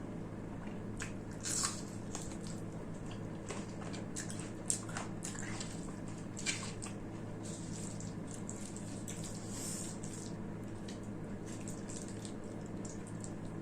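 Close-up eating sounds of a person eating rice with mutton curry: wet chewing, squelches and lip smacks in scattered short clicks, over a steady low hum.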